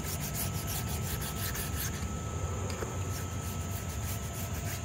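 Sparx hand stone rubbed along the steel blade of a freshly sharpened hockey skate: a steady rub, taking off the burrs left by the sharpening.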